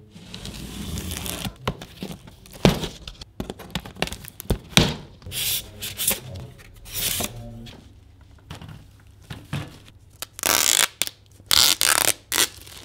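Unboxing noises: a blade slitting packing tape on a cardboard box, then foam packing inserts scraping and knocking against the cardboard. Near the end, louder bursts of tape being peeled off foam-sheet wrapping.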